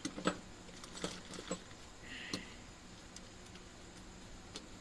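Scattered light clicks and handling noises, with a short scratchy scrape about halfway through, as a dull utility knife cuts open a plastic parts bag.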